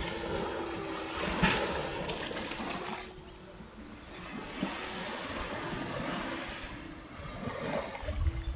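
Small sea waves washing up the beach and drawing back, twice.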